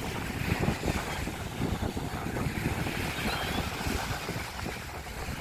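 Strong wind buffeting the microphone in irregular low gusts, over the steady rush of surf.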